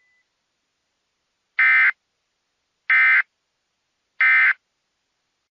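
Three short bursts of Emergency Alert System SAME digital data tones, a buzzy warble centred near 2 kHz, a little over a second apart: the End of Message code that closes an EAS alert.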